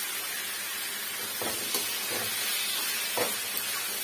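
Boiled potatoes and cabbage frying with a steady sizzle in hot oil and masala in a metal kadhai, with a slotted metal spoon scraping and knocking against the pan a few times from about a second and a half in.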